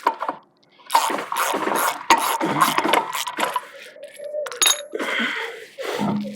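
Metal clinking and rattling as hand tools and brake parts are handled, a series of sharp clicks and knocks.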